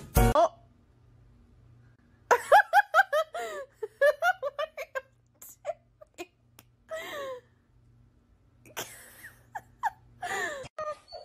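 A person giggling in a quick run of high-pitched bursts about two seconds in, then a few more short laughs and exclamations, with light knocks in between.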